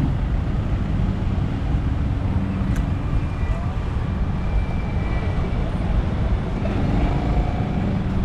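Road traffic on a busy city street: cars, a pickup and motorcycles running past in a steady rumble of engines and tyres.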